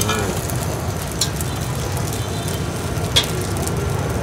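Noodles frying in a wok over a gas burner: a steady low rush of flame with faint sizzling, and two sharp clinks of a metal utensil on the pan.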